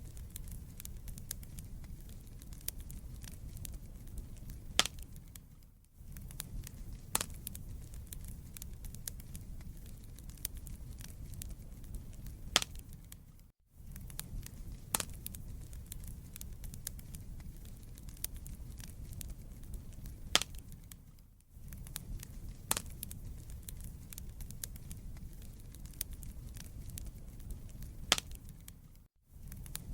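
Wood fire burning in a fireplace: a steady low rumble of flames with frequent sharp crackles and pops of the burning logs. The sound fades out briefly and returns about every eight seconds.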